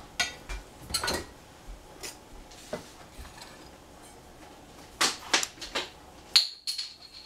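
Kitchen clatter: scattered knocks and clicks of containers and utensils being handled on a countertop, with a quick run of knocks about five seconds in and a sharp, ringing clink just after.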